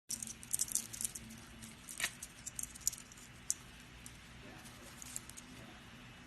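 Scattered light clicks and scratches, irregular and quick, the sound of a pet parrot's claws and beak moving on a surface.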